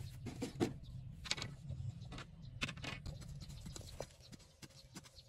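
Irregular scrapes and knocks of a knife blade jabbed and dragged through dry, packed soil to dig out a pit, over a low rumble that fades near the end.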